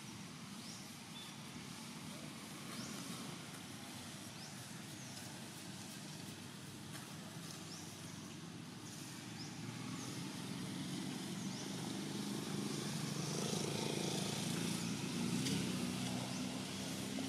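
A motor vehicle's engine drones steadily and grows louder from about ten seconds in as it passes, with faint short high chirps over it.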